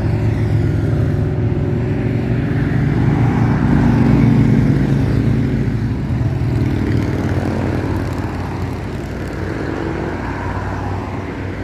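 Motorcycles riding past in a group, engines running, growing louder to a peak about four seconds in and then fading away.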